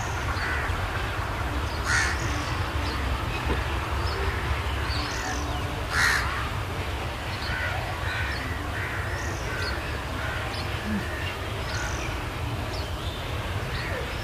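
Crows cawing, with two loud harsh caws about two and six seconds in, among short high bird chirps. Under them runs the steady low rumble of a departing passenger train.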